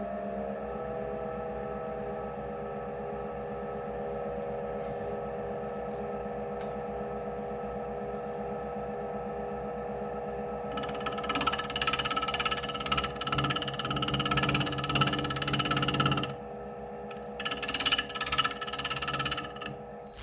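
Wood lathe motor running steadily with a high, thin whine. About halfway through, a turning tool starts cutting into the inside of the spinning canary wood bowl, hollowing it out, in two runs of cutting with a brief pause between them.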